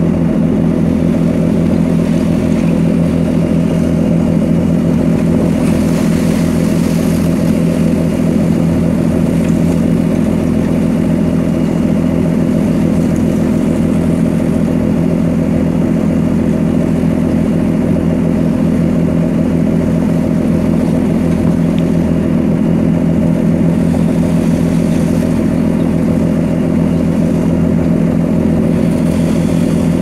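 Steady drone of a landing craft's diesel engines running under way, with a hiss of sea and wind over it that briefly grows louder about six seconds in.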